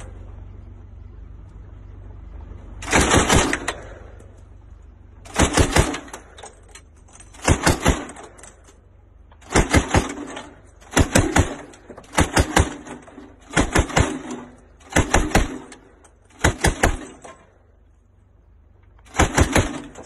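Vehicle-mounted machine gun firing about ten short bursts of a few rounds each, a second or two apart, with a low steady rumble between the bursts.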